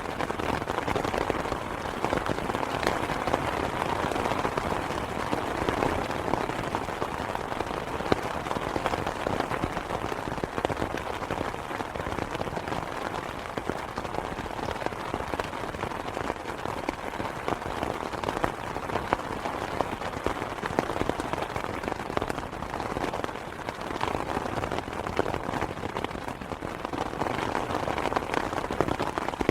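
Steady rain falling on an open umbrella, heard from underneath: a dense, even patter of many drops striking the stretched canopy.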